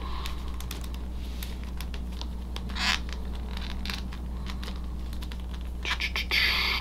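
Plastic joints of a NECA Foot Elite action figure clicking and creaking as they are worked by hand, with handling rustle and a louder scrape about three seconds in, over a steady low hum.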